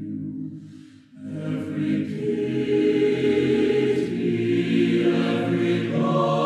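Mixed choir singing a slow, reverent hymn in close harmony. A phrase dies away to a short pause about a second in, then the choir comes back in and swells louder.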